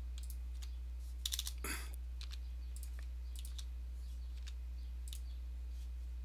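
Typing on a computer keyboard: a quick run of keystrokes a little over a second in, then scattered single key clicks over the next few seconds. A steady low electrical hum runs underneath.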